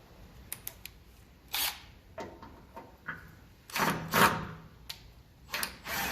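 Hand-tool handling between drillings: a few sharp clicks near the start, then short scraping knocks, the loudest a pair about four seconds in, as the drill and bit are handled.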